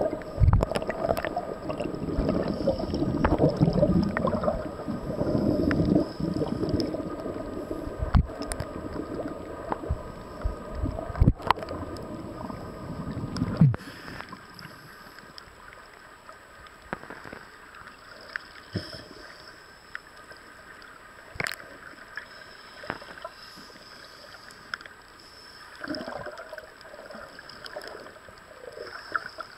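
Underwater bubbling and gurgling of scuba divers' exhaled air streaming from their regulators, heard through an underwater camera. It is loud and churning at first, then drops off sharply about halfway through to a quieter gurgle with scattered clicks and taps.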